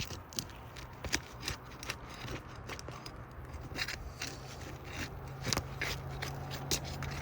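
Irregular scraping and sharp clicks of a tool worked under old architectural asphalt shingles, prying nails up and breaking the shingles' sealant strip, which is resisting. A steady low hum runs underneath from about half a second in.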